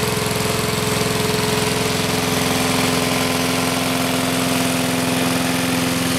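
4 HP Briggs & Stratton single-cylinder four-stroke lawn mower engine running steadily at an even speed. It runs well after a new carburetor diaphragm, primer bulb and spark plug.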